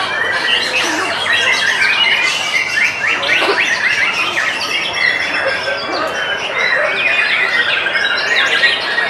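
White-rumped shamas singing, many birds at once: a dense, unbroken chorus of quick overlapping whistled phrases and chatter.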